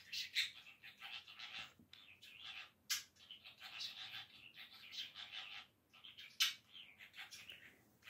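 A budgerigar warbling and chattering: a long, unbroken run of rapid chirps and twitters, with two sharp clicks about three and six and a half seconds in.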